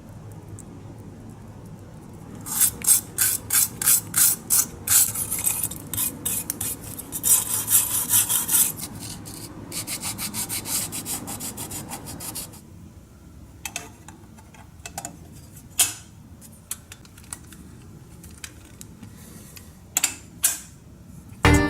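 Rasping hand-rubbing strokes, like sanding or filing, about three a second, then a steadier stretch of rubbing. From just past the middle only scattered light clicks and taps remain.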